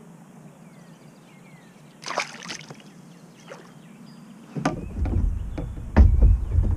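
Knocks and thuds against a kayak hull with low rumbling handling noise, starting about four and a half seconds in and loudest near the end, after a short splash of water about two seconds in.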